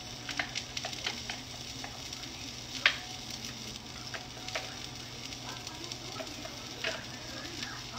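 Food sizzling in a frying pan while a utensil stirs it, with light clicks and one sharper click about three seconds in.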